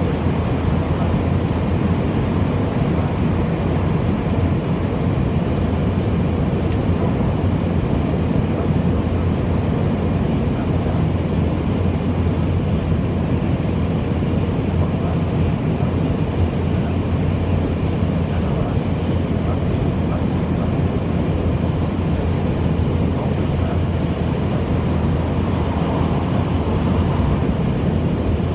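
Steady running noise inside the cabin of an N700-series Shinkansen: a constant low rumble of wheels on rail and rushing air, with no change in pitch or loudness.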